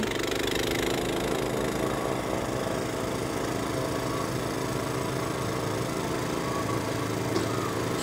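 Walk-behind snowblower's petrol engine running steadily as it clears deep snow, throwing it out through the chute.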